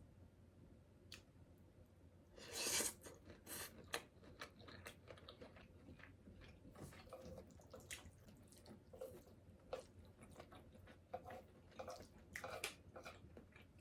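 Quiet, close-miked chewing and biting of food, with short crunches and wet clicks scattered throughout and the strongest crunch about two and a half seconds in.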